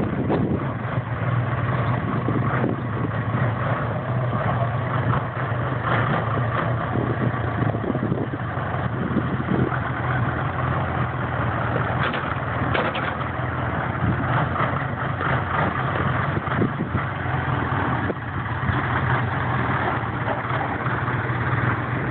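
Case 580K backhoe's diesel engine running steadily with a constant low drone.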